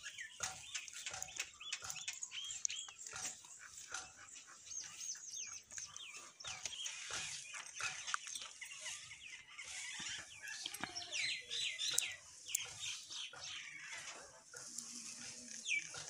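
Mynas and sparrows calling together in a chorus of many short overlapping chirps, harsh chatter and quick rising-and-falling whistles, with no break.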